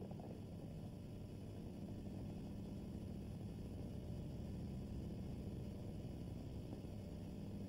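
Steady low hum and rumble of an old film soundtrack, with no distinct sound standing out.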